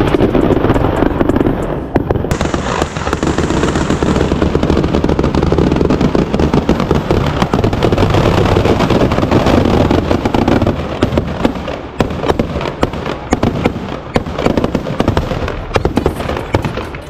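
Firecrackers packed inside a burning Ravan effigy going off in a rapid, continuous crackle of bangs, thinning slightly towards the end.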